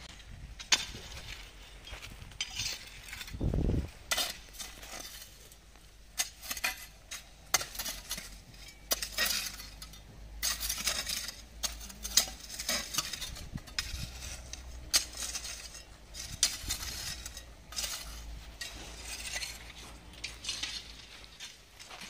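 Metal hoe scraping and chopping into crushed stone aggregate, with stones clinking and rattling in irregular strokes and a few sharp knocks. A brief low rumble comes about three and a half seconds in.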